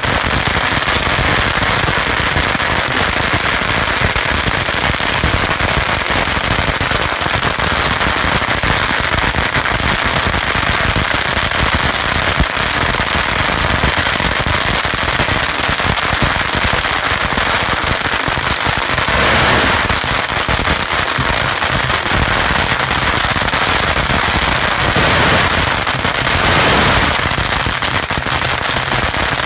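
Strings of Chinese firecrackers going off in a loud, continuous rapid crackle of pops, with louder flurries about two-thirds of the way through and again near the end.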